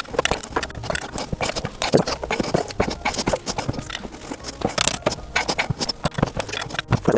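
Rapid, irregular metallic clicks and knocks of hand tools working at the axle bolt of a kick scooter's back wheel to take the wheel off.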